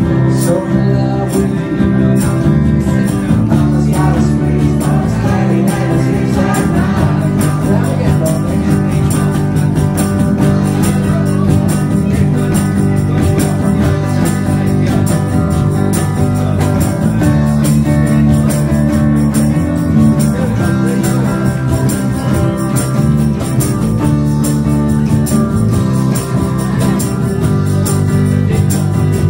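Live blues band playing: electric bass guitar and electric guitar over a steady beat.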